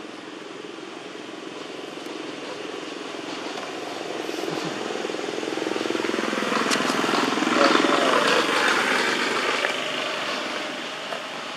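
A passing engine: a steady drone that grows louder to a peak a little past the middle, then fades away.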